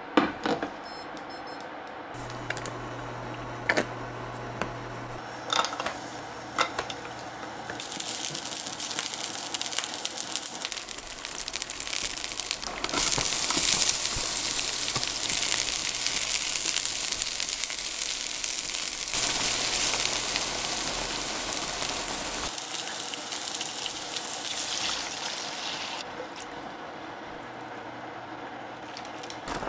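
Garlic and sliced onion sizzling in oil in a frying pan, after a few clanks of the pan and tongs. The sizzle starts about a quarter of the way in, is loudest in the middle, and dies down near the end once cream is in the pan.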